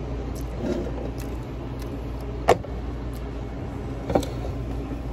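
Knocks and clicks from a phone camera being gripped and moved, two louder knocks about two and a half and four seconds in, over a steady low room hum.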